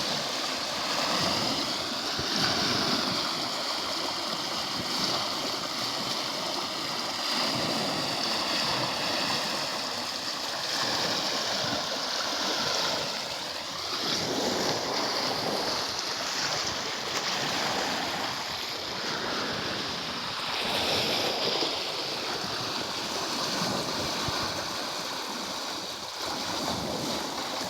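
Cold mountain water flowing fast along a canal, a steady rushing noise.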